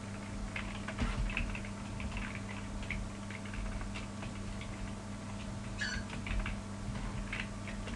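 Occasional computer keyboard keystrokes, light scattered clicks, over a steady low electrical hum, with one short squeak a little past the middle.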